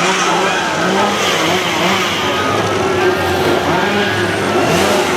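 Several chainsaw engines revving over and over, their pitch rising and falling in overlapping surges.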